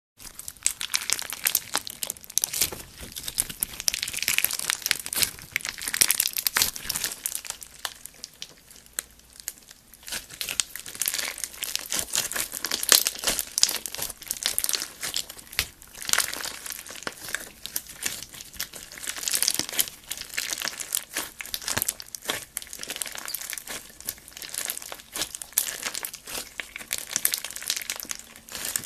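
Hands squeezing, poking and stretching slime, making dense, irregular crackling and small popping clicks that come in waves.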